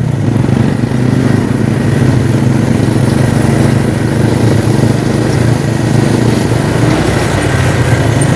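Small motorcycle engine running steadily under way, with road and wind noise.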